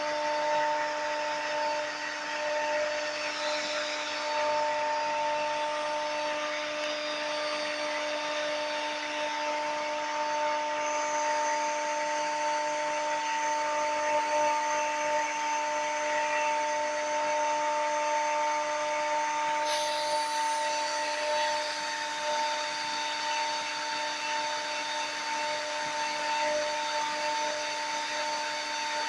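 CNC router spindle running at a steady high speed, a constant whine over the hiss of the cutter milling a workpiece turned on a 4th-axis rotary divider. A fainter, higher tone joins about eleven seconds in.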